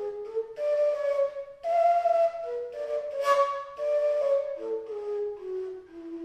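Fujara, the long Slovak overtone flute, playing a folk melody in held, stepped notes with a strongly breathy tone, with a sharp breathy blast a little past the middle.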